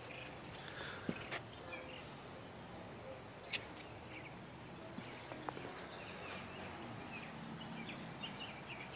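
Quiet outdoor ambience with faint, scattered bird chirps and a few soft clicks.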